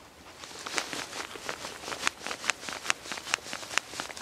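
Fixed-blade knife scraping and picking along the edge of tree bark: a run of short crisp scrapes, about two to three a second.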